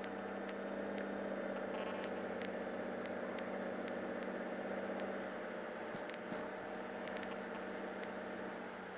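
Cirrus SR22's six-cylinder Continental IO-550 engine running at low power during the landing rollout, a steady drone heard through the headset intercom, easing slightly in the second half.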